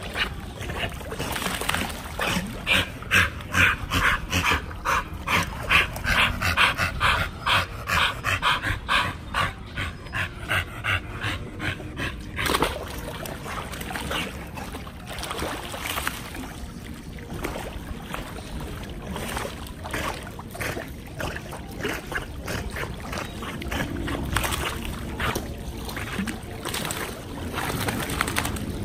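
Pit bulls swimming in a pool: a dog whimpering amid water splashing. A rhythmic run of about one and a half pulses a second lasts through roughly the first ten seconds, then the sounds become looser and irregular.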